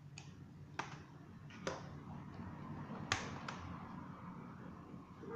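Five sharp clicks and taps of small laptop parts and tools being handled during disassembly, the loudest a little after three seconds in.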